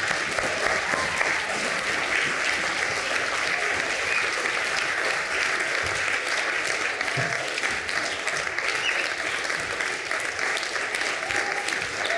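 Audience applauding steadily: a dense, even clatter of many hands clapping at once.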